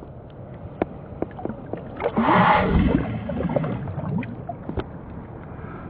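Water splashing and sloshing, loudest for about a second roughly two seconds in, with scattered small knocks and clicks.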